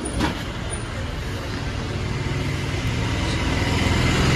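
Street traffic with a motor vehicle's engine hum growing steadily louder, and a short click just at the start.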